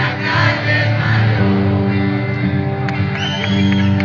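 Live rock band playing an instrumental passage between sung lines, with electric guitar and sustained chords, heard loud from within the audience. A high whistle-like tone is held briefly near the end.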